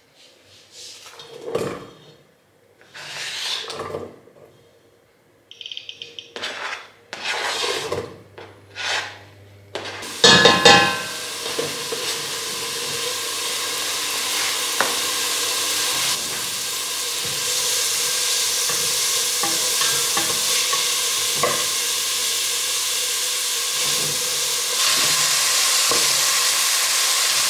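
A few scattered knocks and scrapes, then about ten seconds in a loud clatter as chopped onion, pepper and garlic go into hot olive oil in a pot and start sizzling steadily, with a spoon stirring now and then.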